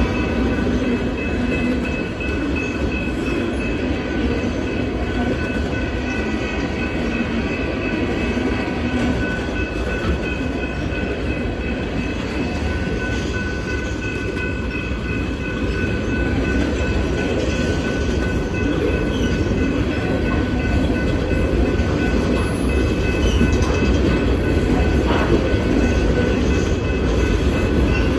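Freight cars of a passing train rolling by close at hand: a steady rumble and clatter of steel wheels on the rails. Thin high tones ring over it through the first half.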